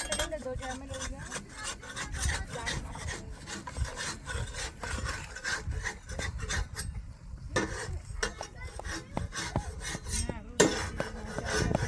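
Scraping and rasping, many quick irregular strokes, with one sharper knock near the end.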